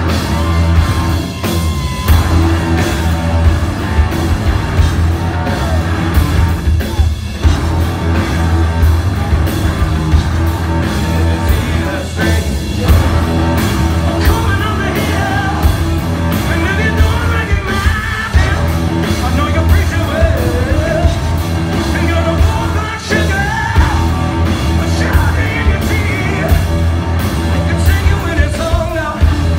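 Rock band playing live: distorted electric guitar, bass guitar and a driving drum kit under a male lead vocalist singing, loud and dense.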